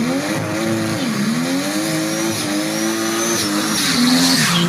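Turbocharged drag car doing a burnout: the engine is held at high revs with short dips over the hiss of spinning tyres, and a thin high whistle rises slowly through the middle.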